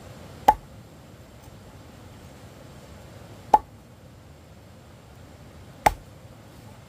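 Three sharp single knocks, about three seconds apart, each with a brief ring.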